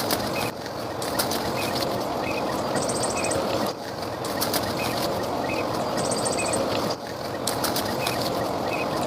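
Jungle ambience: a steady rushing background with small bird chirps recurring every second or so, short high buzzy trills every few seconds, and a few sharp knocks. It changes abruptly twice.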